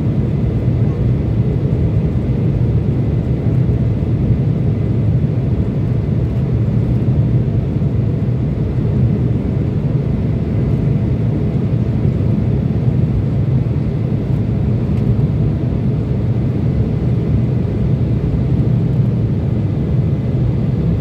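Cabin noise inside an Embraer 170 climbing after takeoff: the steady, low, even rumble of its GE CF34 turbofan engines and the airflow past the fuselage, unchanging throughout.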